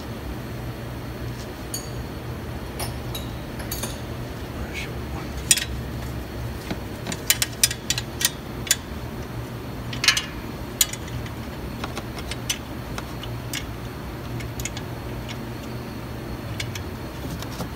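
Irregular metallic clinks and taps of hand tools and bolts against steel under a vehicle, over a steady low background hum.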